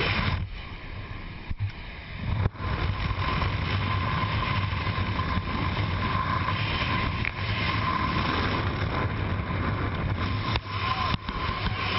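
Small jump plane's engine and propeller droning steadily, with wind rushing through the open door; the noise drops for about two seconds near the start, then comes back.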